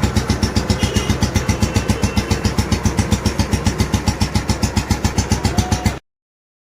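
Made-in-England Royal Enfield Bullet G2 single-cylinder engine idling with its even thump, about six or seven beats a second, freshly fitted with a new piston and rings. The sound cuts off suddenly near the end.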